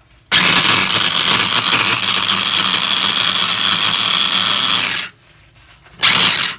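Electric food chopper with a glass bowl running, its motor whirring steadily as the blades grind leftover fast food. It runs for nearly five seconds, stops, and starts again about a second later as the top is pressed down once more.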